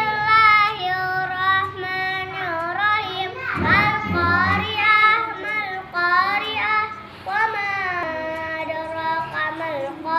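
A child singing a melody, with several long held notes.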